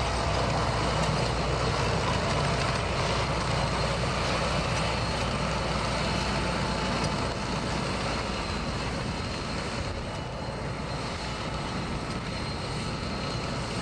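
Steady running noise of a heavy vehicle, a low engine rumble under a constant rushing hiss.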